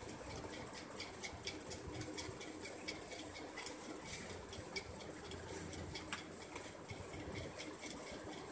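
Cardboard phone packaging being handled: light, irregular scratching and clicking as the inner tray slides and is set down, over a faint steady hum.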